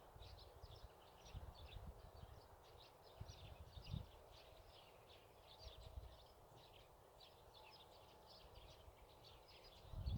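Faint, continuous chirping of many small birds, with low gusts of wind rumbling on the microphone now and then, loudest about four seconds in and at the very end.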